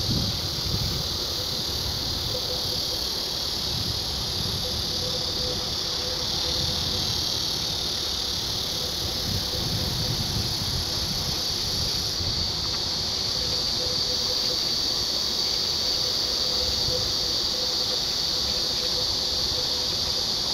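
A steady, high-pitched chorus of insects from the trees, unbroken throughout, over a low outdoor rumble and a faint steady hum.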